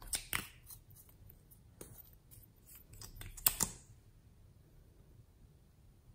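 Sharp plastic clicks and small taps from liquid lipstick tubes being handled and uncapped; the loudest, a close pair of clicks, comes about three and a half seconds in.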